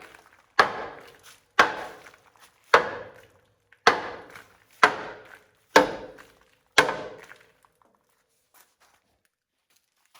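A series of heavy, evenly spaced strikes, about one a second, seven in all, each ringing out briefly before the next; they stop about seven seconds in.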